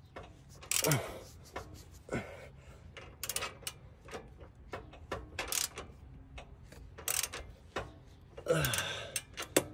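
Scattered metallic clicks and knocks of a socket ratchet and wrench tightening the bolts and self-locking nuts on a steel bolt-on panhard bar bracket, a few strokes at a time with pauses between.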